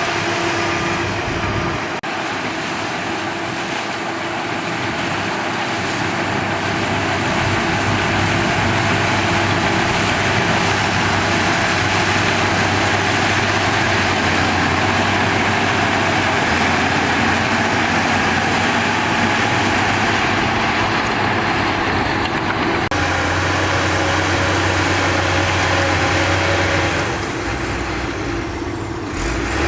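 Shantui DH17 bulldozer's diesel engine running under load, a loud steady drone with a noisy rumble over it, as the dozer pushes sand. Its tone shifts abruptly partway through and the sound dips briefly near the end.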